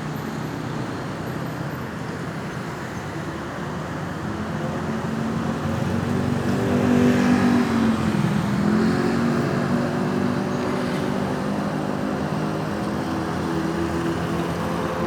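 A motor vehicle passing close by in road traffic. Its engine hum grows louder over several seconds, peaks about seven to eight seconds in, and drops in pitch as it goes past, with traffic noise continuing.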